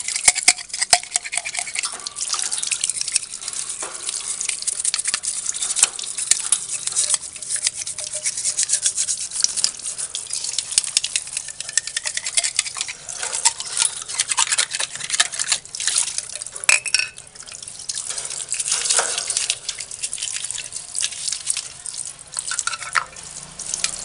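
A brush scrubbing the inside of a plastic bird drinking tube in rapid scratchy strokes, with tap water running and splashing into a basin.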